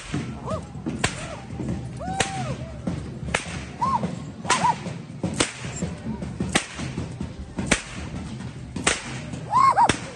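Tlacololero dancers cracking braided whips (chirriones), one sharp crack about every second. Short rising-and-falling whistle-like tones sound between the cracks.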